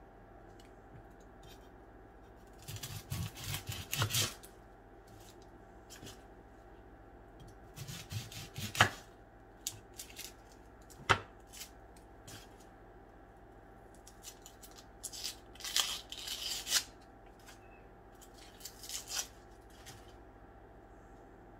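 A yellow onion being trimmed with a knife and peeled by hand: short crackly bursts as the blade cuts through the onion and its dry papery skin and the skin is torn off, with two sharp knocks of the knife on the plastic cutting board about nine and eleven seconds in.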